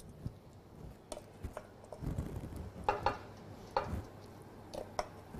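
A spoon knocking and scraping against a small stainless steel saucepan while pieces of salt cod are spooned out into a baking dish: a handful of sharp clinks and taps spread through, over a low steady hum.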